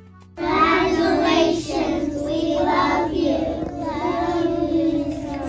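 A group of young children singing together in unison, starting suddenly about half a second in after quiet background music.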